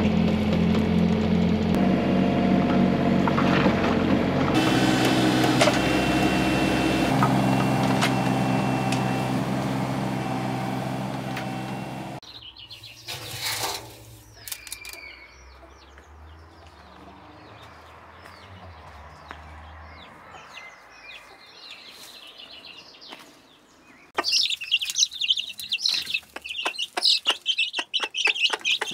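Excavator engine running steadily, heard from the cab, until it stops about twelve seconds in. Then comes a quiet rustle of grain as a hand scoops chicken feed. From about 24 seconds young chickens cheep loudly, with many short clicks.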